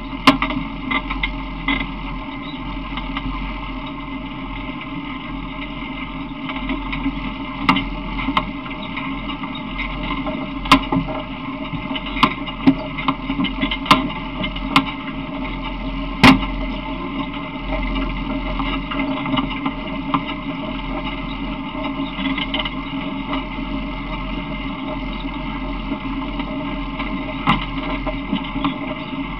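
Steady rumble and rattle of a small open multi-seat vehicle rolling along, with about a dozen sharp knocks and clicks scattered through it.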